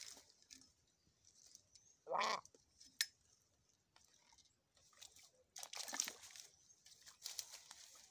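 Wet feathers of a slaughtered hen being rubbed and worked by hand in a steel basin of water: soft splashing and squelching, with a sharp click about three seconds in. A short bleating animal call about two seconds in is the loudest sound.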